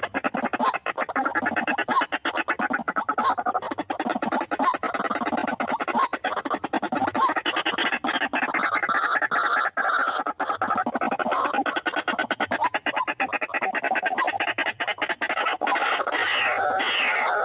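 White-breasted waterhens calling, a rapid, continuous run of harsh repeated notes, with a series of falling notes near the end.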